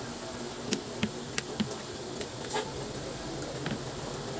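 Fork and spoon clicking on a plate as food is scooped up: a handful of light clicks over a steady hiss.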